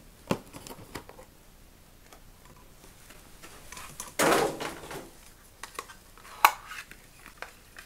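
Handling a small toy display stand in its clear plastic packaging: a few light clicks and taps, and a brief louder crinkle of plastic about four seconds in.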